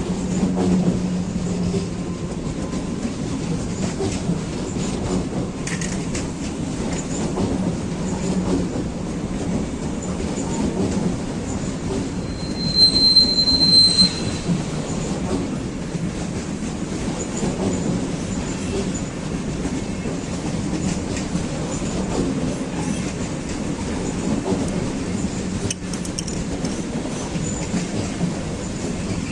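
A train rolling slowly with a steady low rumble, and a brief loud high-pitched squeal about halfway through that lasts a second or so.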